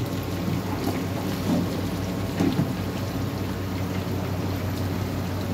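Mutton, onions and masala sizzling in an open pressure cooker over the heat: a steady frying hiss with a low hum beneath.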